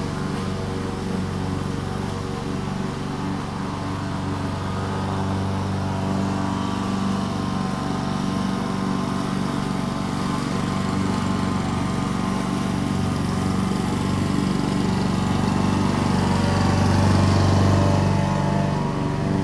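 Walk-behind petrol lawn mower engine running steadily while cutting grass, growing a little louder toward the end as it passes closer, then easing slightly.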